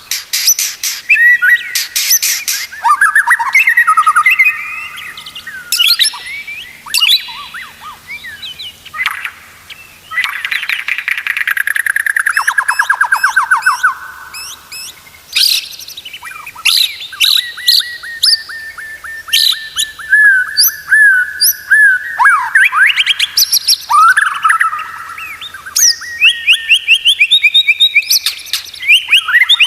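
White-rumped shama (murai batu) singing a long, varied song of clear whistles, rapid rattling trills and quick repeated notes, one phrase after another with brief gaps.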